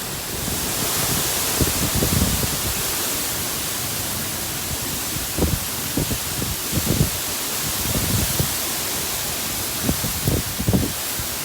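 Heavy rain falling in a steady hiss during a storm, with short gusts of wind buffeting the microphone now and then.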